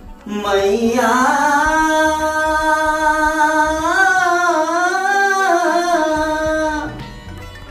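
A single voice singing one long held note, its pitch wavering and lifting briefly about four seconds in before fading out near the end.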